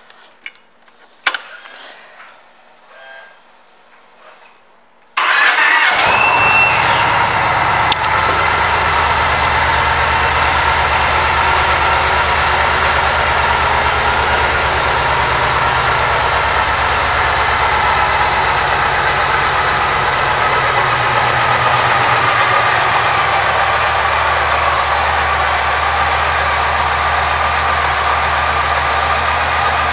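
The air-cooled V-twin of a 2010 Yamaha Stratoliner Deluxe starts about five seconds in, after a few faint clicks, and catches at once. It then idles steadily.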